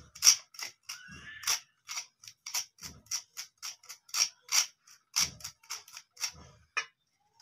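A metal spoon clinking against the side of a glass bowl while stirring dry powder: a quick run of light clicks, about three a second, stopping shortly before the end.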